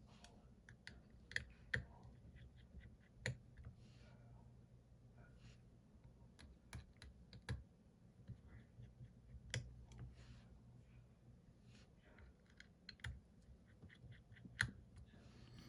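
Faint, irregular small clicks and taps of a precision screwdriver, tweezers and tiny screws on an iPhone 14 Pro Max's internal plates as its tri-point screws are taken out. The sharpest clicks come about a second and a half in, near three seconds in and near the end.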